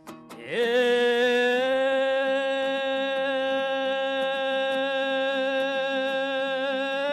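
A singer holds one long, steady note for over seven seconds, sliding up into it about half a second in, over a plucked-string accompaniment in a Kazakh folk song.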